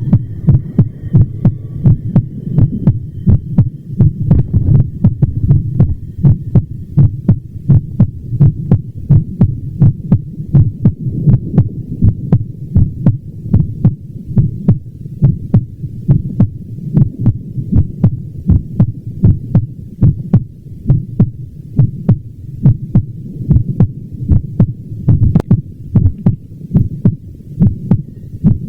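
Heart sounds: a steady, regular heartbeat, each beat a short sharp stroke over a continuous low rumble.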